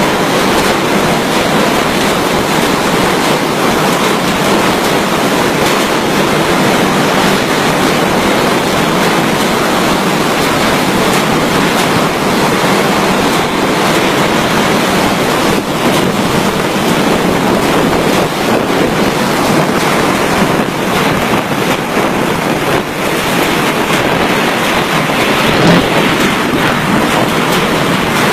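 Typhoon wind and surf: a loud, steady rushing noise that does not let up, with wind buffeting the microphone.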